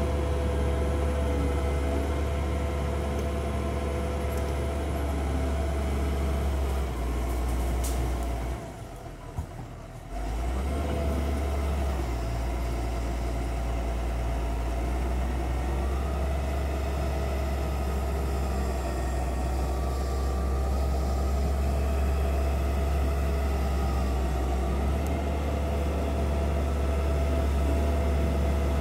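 Doosan DX140W wheeled excavator's diesel engine running steadily as the machine moves slowly, a continuous low rumble with a steady hum over it. The sound drops away briefly about nine seconds in, then comes back at the same level.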